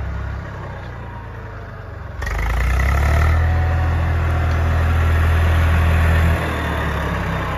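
Eicher 333 tractor's three-cylinder diesel engine running under load, pulling a 7-foot Shaktiman rotavator that churns the soil behind it. The sound gets louder about two seconds in and drops back about six seconds in.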